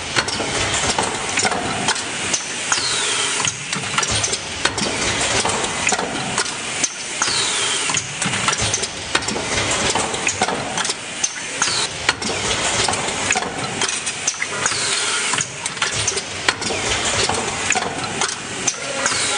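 Automated diaphragm forming press running: steady mechanical noise with frequent clicks and knocks, and a falling high whine about every four seconds as it cycles.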